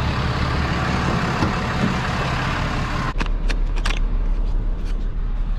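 Ram rollback tow truck's engine idling, heard beside the truck under a broad rush of noise. About three seconds in, the sound changes to a low steady hum from inside the cab, with a few sharp clicks.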